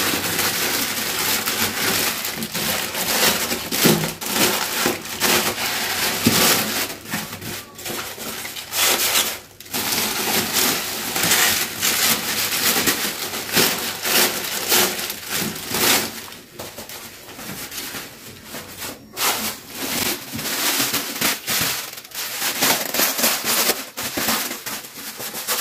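Plastic shopping bags and plastic-wrapped packages rustling and crinkling as they are handled and unpacked, with brief lulls now and then.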